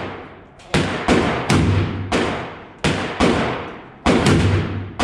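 Gunfire at a shooting range: about eight shots in quick, uneven succession, each followed by a long echoing decay.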